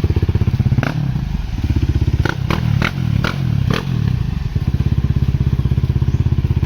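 Husqvarna enduro motorcycle engine running with an even, fast beat after its gasket replacement; for a few seconds the beat turns uneven and shifting, with several sharp clicks, before settling back to a steady idle.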